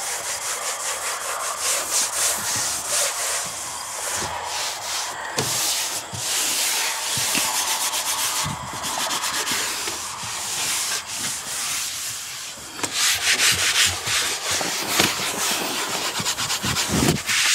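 Leather cleaning wipe rubbed over a car's dashboard and door panel in quick back-and-forth strokes, a steady scrubbing sound that grows louder near the end.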